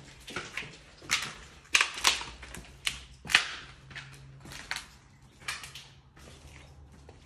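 Footsteps crunching and scuffing over rubble and broken ceiling tiles on a hard floor: a run of sharp, uneven crackles, loudest in the first half and thinning out near the end.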